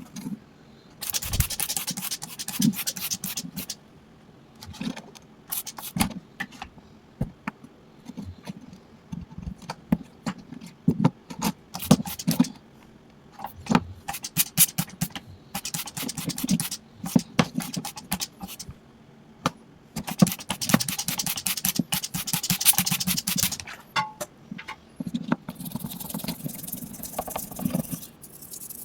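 Scrubbing and scraping on a small hard object in bursts of a few seconds, with many short clicks and taps in between, as of a toy being cleaned by hand.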